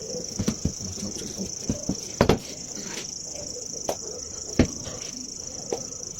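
Irregular knocks and taps of wooden MDF drawer parts being handled and fitted together, with two louder knocks about two and four and a half seconds in. A steady high-pitched hiss runs underneath.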